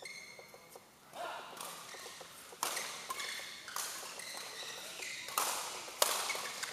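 Badminton rally: a string of sharp racket-on-shuttlecock hits, ringing in the hall, the loudest a smash near the end. Short high squeaks of court shoes near the start.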